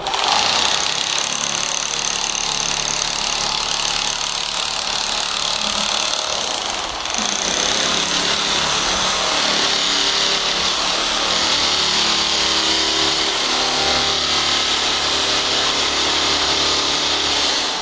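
Metabo drill with a wide flat scraper blade running steadily while it chisels dried carpet glue off a concrete floor. There is a brief dip about seven seconds in.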